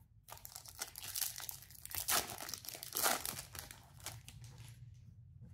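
The foil wrapper of a 2023 Topps Chrome Platinum trading card pack being torn open by hand, crinkling and tearing for about four seconds, loudest in the middle, then dying away.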